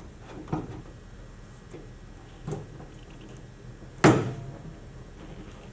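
Knocks of the outer beltline weatherstrip, with its clips, against the truck's steel door as it is slid into place and lined up: a light knock, a softer one, then a sharp loud one about four seconds in.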